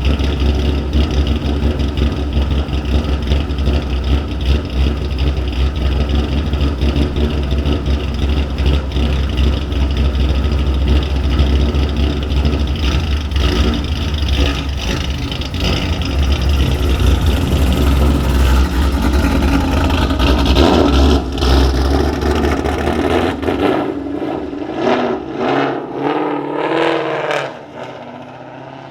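Ford Mustang 5.0 V8 with a ghost cam tune and American Racing headers running close by for most of the stretch. About three-quarters of the way through it pulls away, the engine note rising as it accelerates, then fades into the distance near the end.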